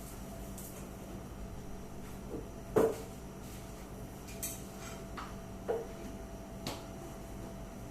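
Kitchen clatter: a handful of separate knocks and clacks, as of cookware or a cupboard being handled, the loudest just under three seconds in, over a faint steady hum.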